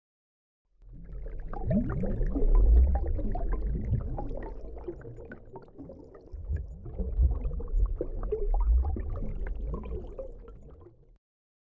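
Ambient sound effect: a deep rumble with scattered small pops over it, like water, swelling twice and stopping abruptly near the end.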